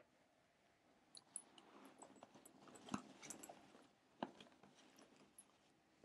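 Near silence: faint room tone with scattered small clicks and soft rustling, the loudest click about three seconds in.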